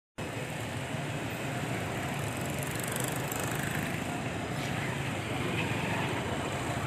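Busy street traffic noise: a steady rumble of vehicle engines running, cutting in abruptly just after the start.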